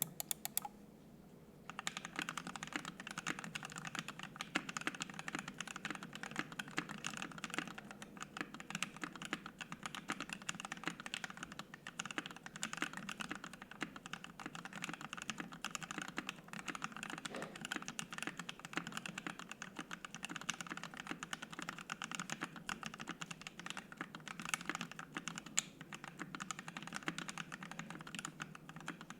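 Fast continuous typing on a mechanical keyboard fitted with lubed and filmed Alpaca linear switches, an FR-4 plate and PBT keycaps. A few lone key presses come first, then steady rapid keystrokes from about two seconds in.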